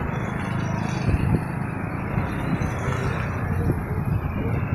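Gusty wind buffeting the microphone, a low rumbling noise that swells and eases, with road traffic passing.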